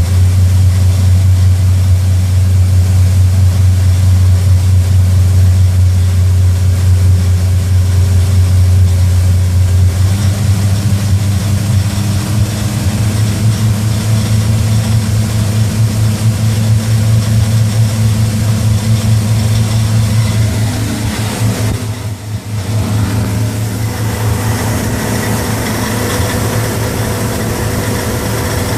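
MerCruiser 350 Mag V8 marine engine running with a steady low drone. About ten seconds in its pitch steps up slightly; it dips briefly around two-thirds of the way through and then runs on with more high-pitched sound mixed in.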